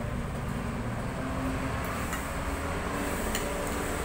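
Steady low background rumble, with a few faint light clicks of a spoon and fork against a plate.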